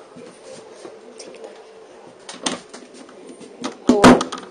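Knocking on a door: a few soft bumps, then a cluster of sharp, loud knocks about four seconds in.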